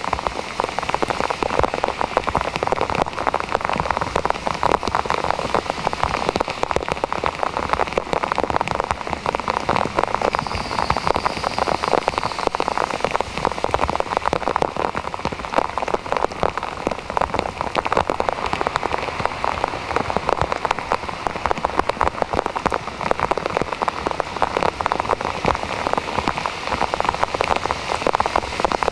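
Heavy rain pouring onto a flooded road: a steady, dense hiss made of countless drops striking the standing water and pavement.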